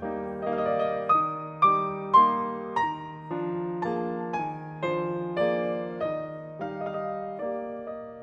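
Background piano music: a slow, gentle melody of struck notes over held chords.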